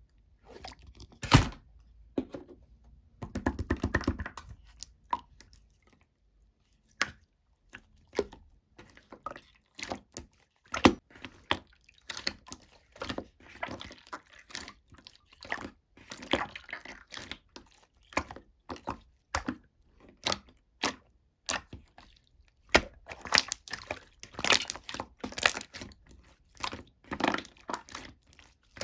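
Slime being squeezed, pressed and stretched by hand, giving irregular sticky pops, clicks and crackles. About three seconds in there is a brief low buzz.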